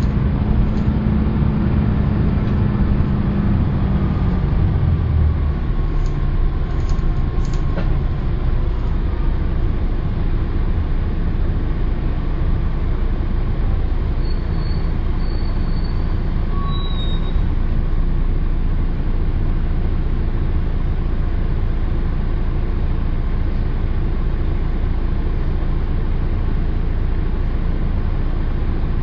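Inside a Mercedes-Benz O408 city bus with its OM447hLA diesel engine: the engine note falls and fades within the first five seconds, leaving a steady low rumble.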